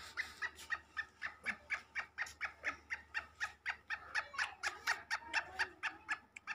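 Caged black francolin giving a rapid, even run of short clucking notes, about five a second.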